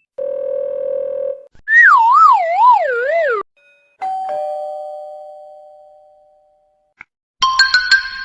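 A string of separate novelty sound effects. First a steady buzzer tone for about a second, then a wavering tone that slides downward, then a two-note doorbell 'ding-dong' that rings out slowly. A burst of bright chime notes comes near the end.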